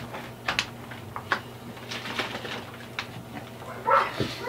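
A sheet of paper rustling and crinkling in the hands in short, irregular crackles, with a brief louder sound about four seconds in.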